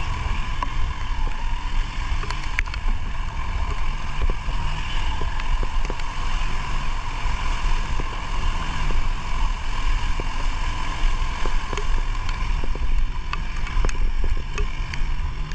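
Wind buffeting the microphone of a camera on a moving motorcycle, over the steady run of the bike's engine, with scattered light ticks.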